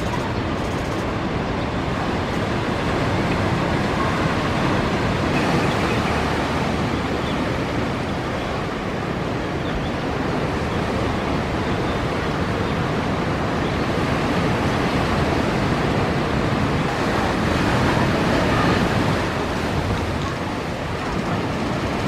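Big ocean waves breaking on a reef and rushing in, a steady roar of surf that swells louder twice.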